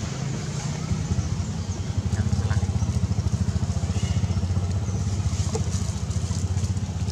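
A small engine running steadily at idle, a low rapid putter that grows louder about two seconds in.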